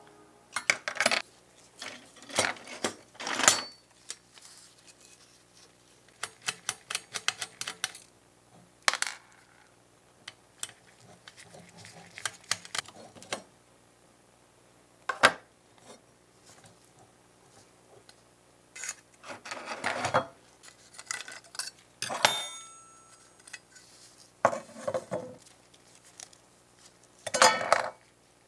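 Small parts of a scale model Ferrari F40 being handled and pulled apart by gloved hands: scattered sharp clicks, clinks and taps, some in quick clusters, with quiet gaps between.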